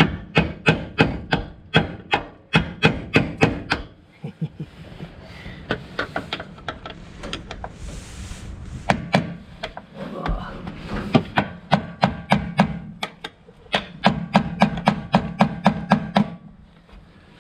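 Metal hammer taps on the steel lock ring of a fuel pump module, knocking the ring round to loosen it. The taps come quickly, about four a second, in a run of about four seconds, then again from about nine seconds in until near the end, with short pauses.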